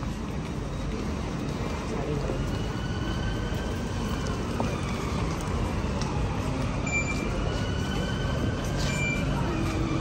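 Electric passenger train running with a steady low rumble, the whine of its motors slowly rising and falling in pitch. Two short high beeps sound about two seconds apart near the end.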